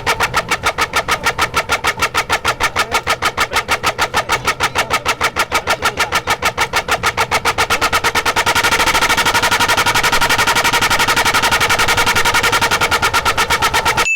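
Loud multi-tone horns rigged to a Royal Enfield Bullet motorcycle, sounding in rapid pulses of about five a second; about eight seconds in the pulses come faster and sound brighter.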